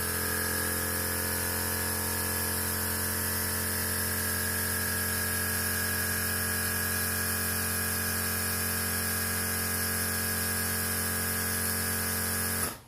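Hot air rework station running steadily, a constant fan hum with air hiss, as it heats the solder under a phone flex cable connector to desolder it. It cuts off suddenly near the end.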